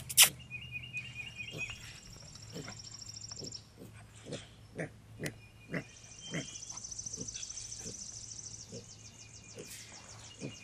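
Mini piglet grunting, a run of short grunts about every half second starting a couple of seconds in, with high trills in the background.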